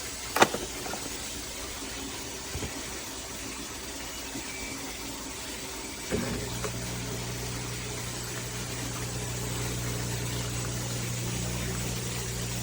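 AIRMSEN mini countertop dishwasher running a wash cycle, with a steady water hiss and a few sharp clicks near the start. About six seconds in, its pump starts with a click and then runs with a steady low hum.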